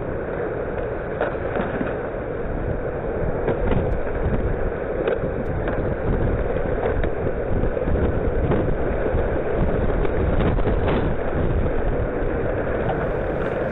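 Severe storm wind blasting a doorbell camera's microphone: a loud, steady rush of wind noise with scattered sharp knocks and cracks. The forecasters take the wind for straight-line winds strong enough to flatten a yard of trees.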